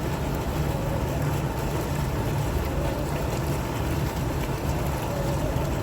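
Fountain water splashing and flowing steadily, with a strong low rumble beneath the splashing.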